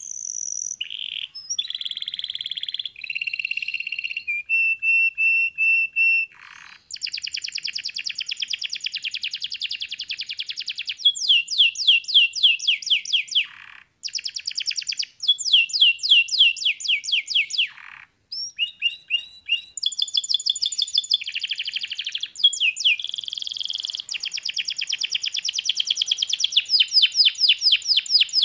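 Domestic canary singing a long, continuous song of fast trills, one phrase running into the next every second or two, with a few very brief breaks.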